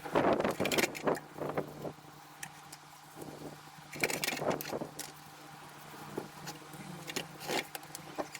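Irregular knocks and clatter of tools or parts being handled, loudest at the start and again about four seconds in, over a steady low hum.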